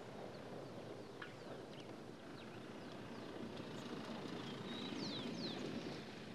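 Mercedes-Benz X-Class pickup's four-cylinder turbo diesel and its tyres on a dirt track as the truck drives past, a steady rumble that grows a little louder as it goes by and eases near the end. Small birds chirp in the second half.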